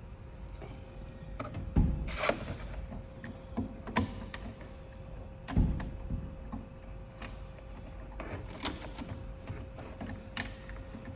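Scattered clicks, taps and knocks of cords and plastic connectors being handled and plugged in, with louder thumps about two seconds in and again about five and a half seconds in. A faint steady hum runs underneath.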